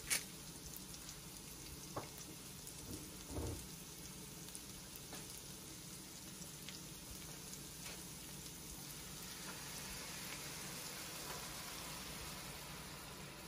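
Diced onion and garlic sizzling gently in butter in a frying pan, a steady faint hiss. There is a light knock about two seconds in and a dull thump a moment later. The sizzle grows a little louder near the end as heavy cream is poured into the hot pan.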